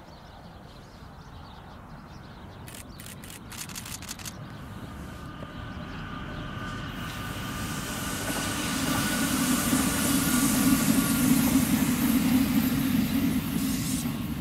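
Red Rhaetian Railway electric multiple unit passing by, its running noise swelling steadily and loudest a little before the end, with a thin whine in it. A few brief clicks come about three to four seconds in.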